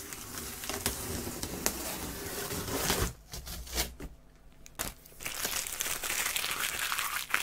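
Plastic packing tape being ripped off a cardboard box, a continuous tearing rasp for about three seconds. After a brief lull with a few clicks, crinkling and rustling as the peeled tape and loosened flaps are handled.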